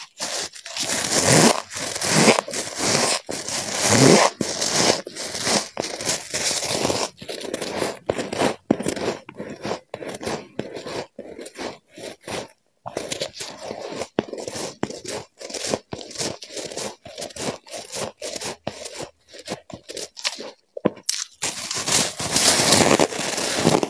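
Freezer frost being bitten and chewed, close to the microphone: a rapid run of crisp crunches with short breaks. The crunching is densest in the first several seconds and again near the end, sparser in the middle.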